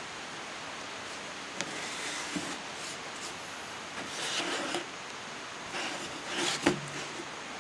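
A hand rubbing and brushing across the surface of a carving panel in several short strokes, with a sharp tap near the end.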